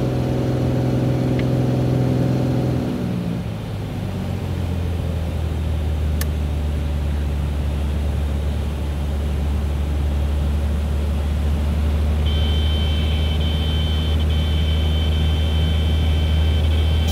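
Beechcraft A36 Bonanza's flat-six engine heard from the cockpit, its note dropping away about three seconds in as the throttle is pulled back to simulate an engine failure after takeoff, leaving a steady low drone of the throttled-back engine and airflow. About twelve seconds in, a steady high warning tone comes on.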